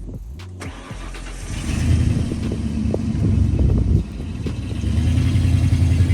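A car or truck engine running, getting louder about two seconds in as the vehicle gets moving, with a brief drop about four seconds in.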